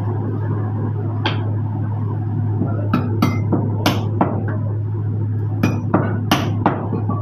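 Heavy meat cleaver chopping bone-in mutton on a thick wooden chopping block: about a dozen sharp, irregular chops, sparse at first and coming quicker from about three seconds in, over a steady low hum.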